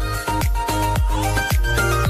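Background dance music with a steady beat: a kick drum about twice a second under bright synth notes.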